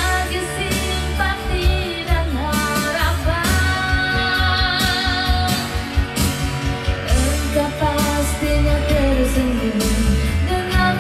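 A woman singing a ballad in Indonesian into a handheld karaoke microphone over a karaoke backing track with a steady beat; her sung line glides up and down in pitch.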